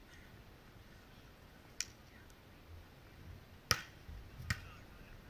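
Three sharp clicks over a quiet background, about two seconds in, then near four seconds, then half a second later; the middle one is the loudest.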